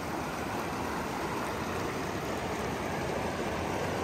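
Shallow river water running steadily over rocks.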